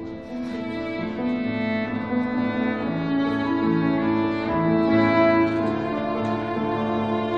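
Cello and grand piano playing a classical duet, the cello bowing long sustained notes over the piano accompaniment.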